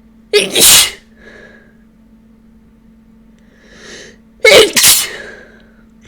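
Two loud human sneezes about four seconds apart, with softer breaths between them and an audible inhale just before the second. They are allergy sneezes, which the sneezer thinks come from ragweed pollen.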